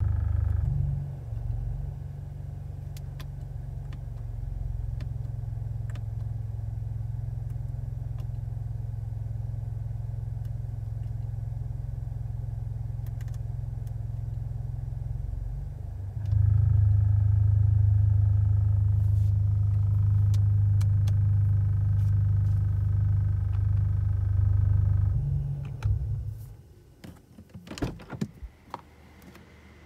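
Mazda car engine idling steadily, heard from inside the cabin, with a few light clicks over it. It gets louder about halfway through, then shuts off near the end, followed by several sharp clicks and knocks.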